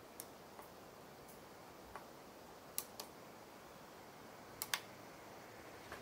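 Toggle switches on a radio-control transmitter being flicked, giving sharp, irregular clicks, some in quick pairs, over a faint steady hiss.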